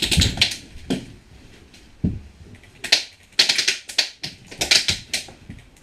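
Airsoft guns firing short rapid bursts, a rattle of sharp clicks in several clusters, with a dull thump about two seconds in.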